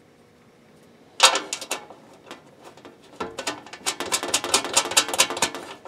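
Small steel bolts and nuts clicking and rattling against the cart's painted sheet-steel panels as they are fitted by hand, left loose and not tightened. A sharp burst of clicks starts about a second in, and a denser run of quick clicks follows in the second half.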